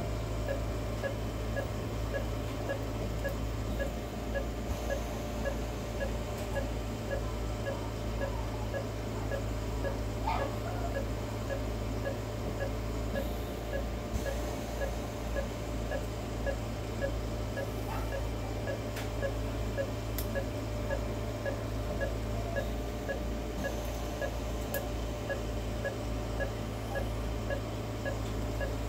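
Anaesthetic patient monitor beeping evenly with the dog's heartbeat, about one and a half beeps a second, over a steady low hum.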